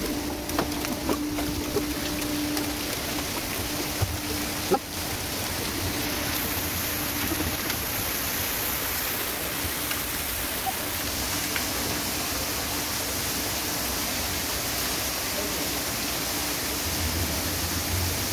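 Steady rush of fast-flowing river water churning around the boat and the wooden pilings, with a couple of short knocks about four and five seconds in.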